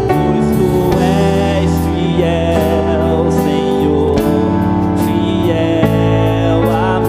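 Live worship band playing a slow gospel song: strummed acoustic guitar, keyboard, bass guitar and drums, with a male voice singing a wavering melody with vibrato over the chords.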